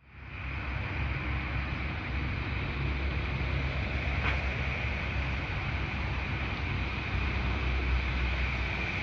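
A boat's outboard motor running steadily under way, with a low rumble and wind buffeting the microphone; it starts abruptly, with a faint click about four seconds in.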